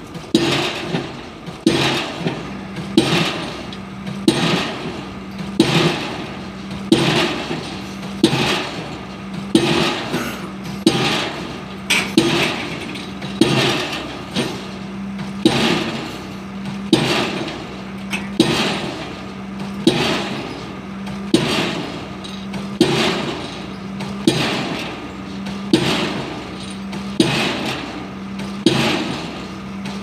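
Diesel pile hammer driving a PHC concrete pile, striking in a steady rhythm of about one blow every second and a half. A steady hum joins in under the blows a couple of seconds in.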